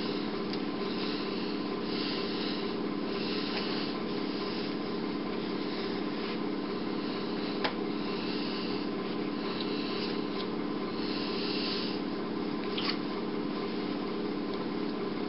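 Intermittent rustling and rubbing of puppets being handled out of sight, over a steady low hum, with one sharp click about halfway through.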